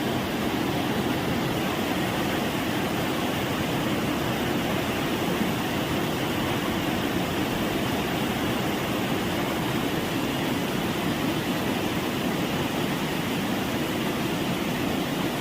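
Heavy rain falling, a steady, even rush of noise with no breaks.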